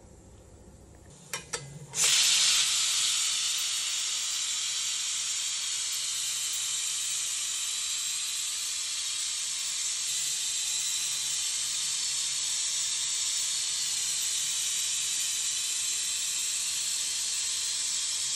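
Stainless steel pressure cooker venting steam: two short clicks, then about two seconds in a loud hiss sets in and continues steadily.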